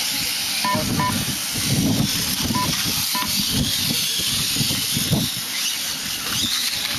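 Small 1/8-scale RC model motorcycles racing on an asphalt track, giving a steady high hiss of motors and tyres. Irregular low rumbling runs underneath, and four short high beeps sound in the first three and a half seconds.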